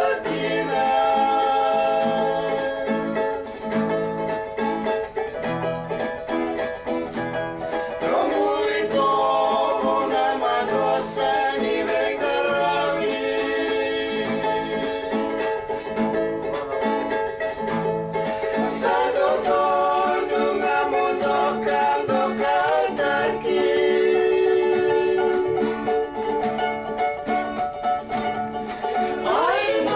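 Men singing together to strummed acoustic guitar, with plucked bass notes keeping a steady beat; the singing goes on throughout.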